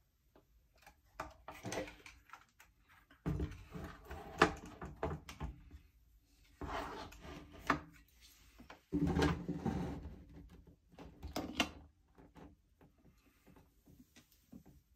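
Irregular knocks, clicks and scraping as the metal chassis and front control panel of a 1970s Peavey "The Bass" amplifier are handled and turned over on a wooden workbench. The handling comes in several busy spells and dies down near the end.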